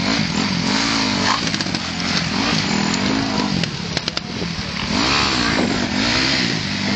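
Motorcycle engine revving up and down over and over, its pitch rising and falling about every second and a half, with a few short clicks around the middle.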